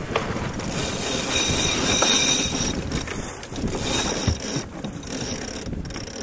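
Sailboat sheet winch ratcheting as the sheet is hauled in around the drum, its pawls clicking in two runs, the first about a second in and the second around four seconds in.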